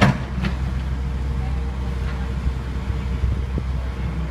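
Kobelco SK75UR excavator's diesel engine running steadily under load, with a sharp metallic knock at the start and another about half a second later. A faint steady whine joins from about a second in.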